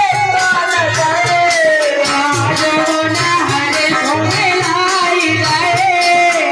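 Indian folk-style song: a singer's voice holding long, bending melodic lines over a steady beat of low drums and light rhythmic percussion.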